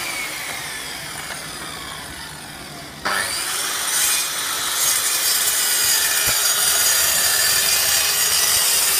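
Scheppach plunge track saw running on its guide rail. The motor winds down in pitch over the first three seconds, is triggered again about three seconds in, spins up with a rising whine, and then runs steadily while cutting along the rail. This is the first pass, which trims the new rail's overhanging rubber splinter strip to set the cutting edge.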